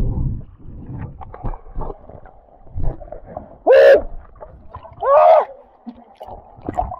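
Two loud shouts or whoops about a second apart, each rising then falling in pitch, over a background of splashing and sloshing water.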